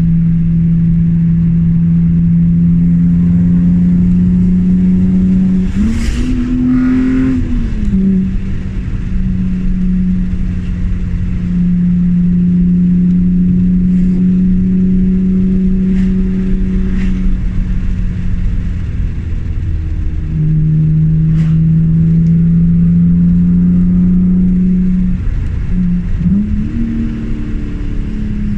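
BMW E36 M3's straight-six engine driving under load, its pitch climbing slowly as it pulls. It jumps and settles about six seconds in and again near the end, at gear changes, and eases off briefly in between.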